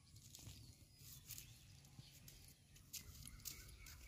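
Near silence: faint outdoor ambience with a low rumble and a few faint ticks.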